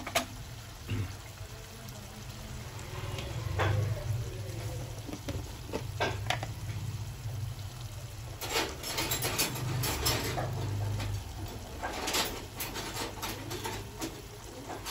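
Chicken and masala paste frying in oil in a non-stick pan on a low flame, a soft sizzle with scattered pops and several bursts of crackling spatter in the second half, over a low steady hum.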